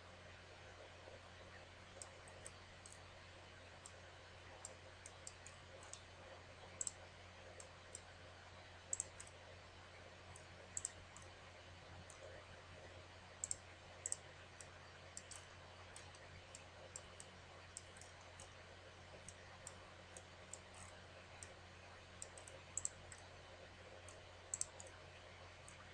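Computer mouse clicking at irregular intervals, single clicks and some quick double clicks, over a faint steady electrical hum and hiss.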